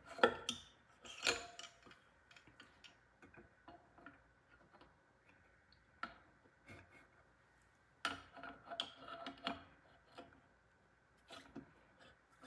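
Scattered small clicks and light knocks of a Panasonic BGH1 camera body being pushed and settled by hand into its underwater housing, with a group of them at the start, a single sharp click midway and another group later on.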